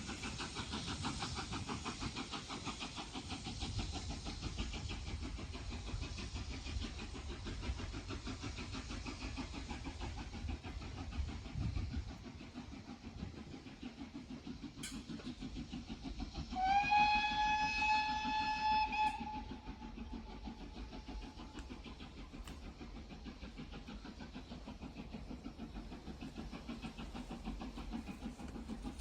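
Steam locomotive GWR 6880 Betton Grange, a Grange-class 4-6-0, running with a rapid rhythmic beat that drops away about twelve seconds in. Then one whistle blast of about two and a half seconds, rising slightly in pitch as it starts.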